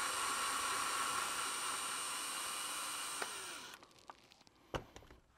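Cordless drill/driver running steadily at speed with a high motor whine, backing a screw out of a lens barrel; it stops suddenly about three and a half seconds in, followed by a light click near the end.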